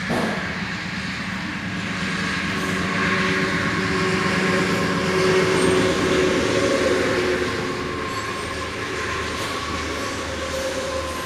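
John Deere 212 lawn tractor's single-cylinder Kohler engine running, its speed and loudness rising over a few seconds and then easing back, with a brief knock at the very start. The engine has a carburettor fault: it won't run unless choked.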